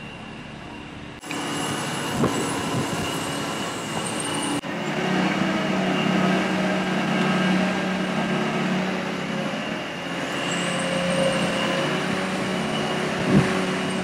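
Truck-mounted crane's engine and hydraulics running steadily as it holds and lifts a large fibreglass boat hull, with a short knock near the end.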